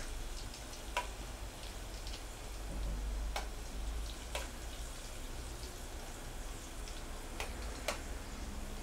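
Okra strips in a gram-flour and rice-flour batter deep-frying in oil in a stainless steel kadai: a steady sizzle, with a few sharp clicks as a metal utensil stirs the pieces apart.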